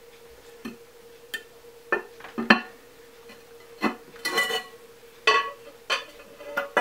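Glazed ceramic lid of a pet drinking fountain clinking and knocking against the ceramic bowl as it is fitted and adjusted by hand: about eight sharp knocks, several with a short ringing tone, the strongest about two and a half and four and a half seconds in.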